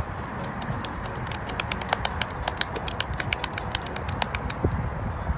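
Folded paper lottery slips rustling and crackling in a box as they are stirred for a draw: a run of quick, irregular crinkling clicks over a low rumble.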